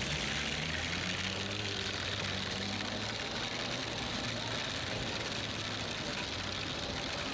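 Steady city street traffic noise with a vehicle engine running, its low hum strongest in the first few seconds.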